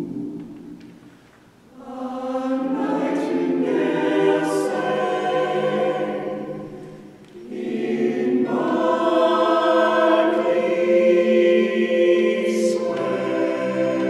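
Mixed a cappella vocal ensemble singing jazz close harmony, with men's and women's voices. A held chord fades out, then a phrase swells in and fades, and a second phrase builds into a long sustained chord.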